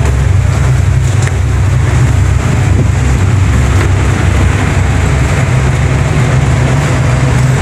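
Loud, steady low rumble on the open deck of the passenger ship KM Gunung Dempo: wind buffeting the microphone together with the ship's machinery noise.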